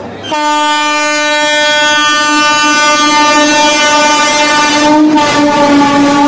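Indian Railways locomotive horn sounding one long, steady blast that starts a moment in and holds; about five seconds in, the noise of the moving train rises under it.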